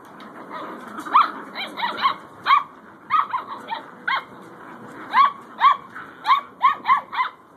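Belgian Malinois puppies yapping in play while tugging at a rag: a string of about fifteen short, high-pitched yaps in quick bunches, starting about a second in.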